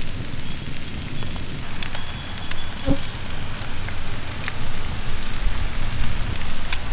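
Open cooking fire crackling under a large fish being grilled, a steady hiss with scattered sharp pops.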